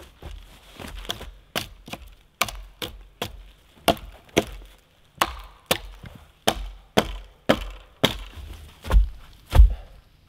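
Dry dead wood cracking as small branches are snapped off a standing-dead sapling: a quick series of sharp wooden cracks, about two a second, ending in two heavier, deeper thuds.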